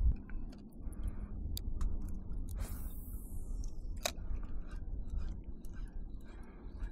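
Low wind rumble on the microphone, with scattered small clicks and ticks; one sharper click about four seconds in.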